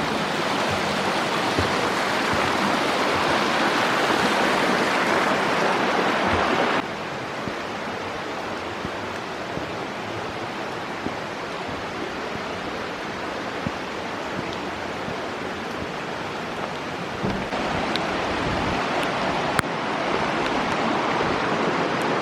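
Steady rushing noise with no distinct tones. It drops suddenly in level about seven seconds in and rises again about eighteen seconds in.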